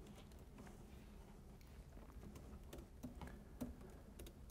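Faint computer-keyboard keystrokes, a dozen or so scattered clicks over near-silent room tone.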